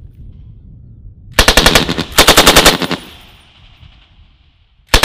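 M240L 7.62 mm belt-fed machine gun firing two short bursts of rapid shots, the first about a second and a half in and the second right after it, with an echo trailing off. A third burst starts right at the end.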